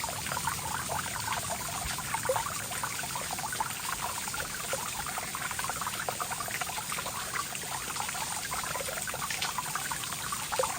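Water of a waterfall trickling and splashing steadily, a continuous wash dotted with many small splashes.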